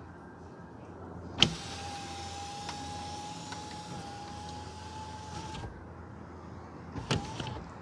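Power panoramic moonroof of a 2021 Toyota Highlander Platinum opening: a click about a second and a half in, then the motor runs with a steady whine for about four seconds as the front glass panel tilts and slides back, and stops abruptly. A couple of clicks with a brief whir come near the end.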